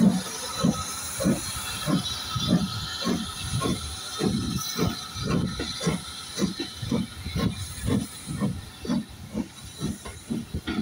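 BR Standard Class 4MT 2-6-4 tank locomotive No 80151 pulling away with its train. Its exhaust beats about twice a second, quickening slightly, over a steady hiss of steam.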